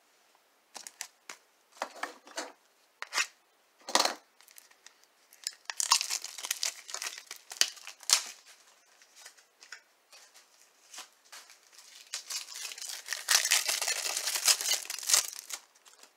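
Plastic wrapper of a trading-card pack crinkling and tearing as it is opened, in two long spells about six and thirteen seconds in, with a few light taps and rustles of handling before.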